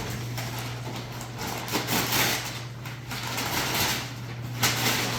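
Wrapping paper being torn and rustled off a large present, in several quick rips, over a steady low hum.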